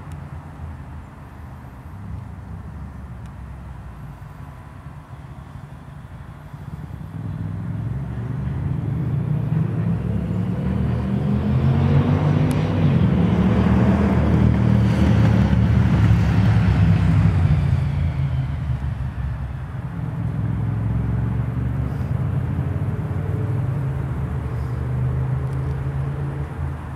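A motor vehicle's engine hum that builds over several seconds to a peak near the middle, then eases back to a steadier, lower hum: a vehicle passing by.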